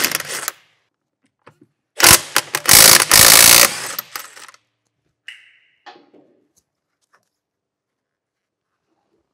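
Impact wrench undoing a van's wheel bolts. A short burst comes right at the start, then a longer hammering burst of under two seconds about two seconds in, followed by a brief high whine and a few light knocks.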